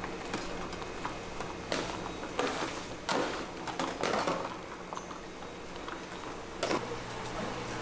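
Irregular knocks, taps and short scraping clatters over a steady low hum, with the loudest bursts a little under two seconds in, around three and four seconds in, and again near the end.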